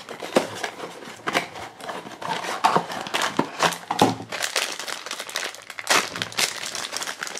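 Blind-box packaging being opened by hand: the cardboard box flap torn back and the black foil bag inside crinkling and rustling as it is pulled out and worked open, with many irregular sharp crackles.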